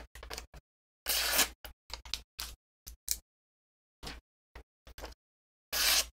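Hand handling sounds of small gear on a tabletop: a string of short clicks and taps, with two longer scrapes about a second in and near the end, and dead silence between each sound.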